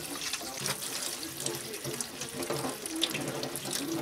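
Water running from a kitchen tap into a sink, a steady hiss with small clicks and splashes.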